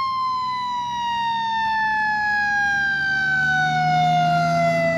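Fire-engine siren wail, one long tone falling slowly in pitch as the siren winds down.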